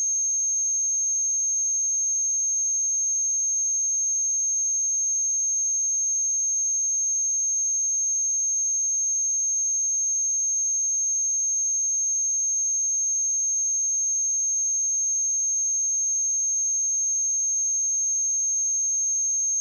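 Steady 6411 Hz sine-wave test tone: a single high-pitched pure tone held at a constant level.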